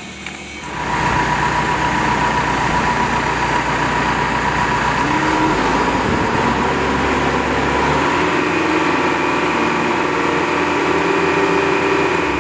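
Self-loading concrete mixer running steadily, fading in about a second in, with a steady whine over the engine; the deep rumble thins about two-thirds of the way through.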